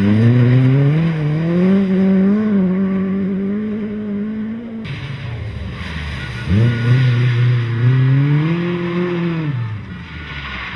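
Mk2 Ford Escort rally car at full throttle, its engine note climbing and then holding high. After a sudden cut, the engine revs up sharply again about six seconds in and drops off a few seconds later.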